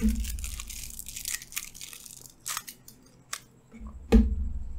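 Mango drink slurped through a straw from a small Maaza carton for about two seconds, with cartons and straws crinkling and clicking as they are handled. A single thump about four seconds in.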